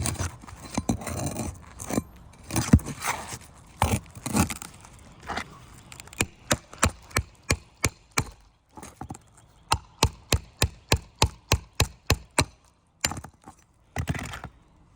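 Scraping and knocking as a nail-removal bar is worked under a brittle asphalt shingle, then a steady run of sharp hammer blows, a little under three a second, for about six seconds, driving the tool to cut or pull a high-set roofing nail.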